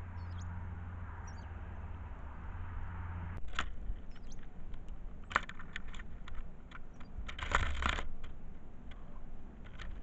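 Small birds at a hanging tube seed feeder: scattered sharp clicks and taps of beaks and feet on the feeder, a brief burst of rustling a little past halfway, and a few faint high chirps. A steady low hum stops about a third of the way in.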